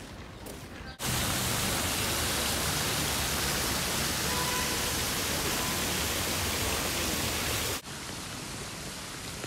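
Fountain water spilling over a stone basin and splashing below: a loud, even rush that cuts in about a second in and drops sharply near the end to a softer splashing.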